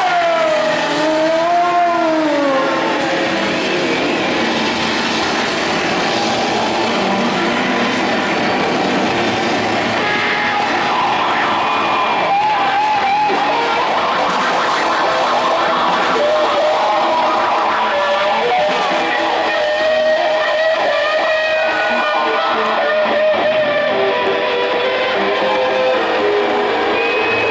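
Live rock band playing an instrumental passage, with an electric guitar lead of bending, wavering notes over the full band.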